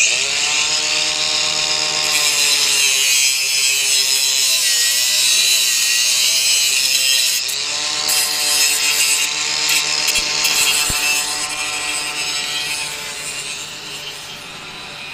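Angle grinder spinning up and cutting through a steel cable: a high whine over a harsh grinding hiss. The motor's pitch sags each time the disc bites into the cable and recovers as the load eases, and it quietens toward the end.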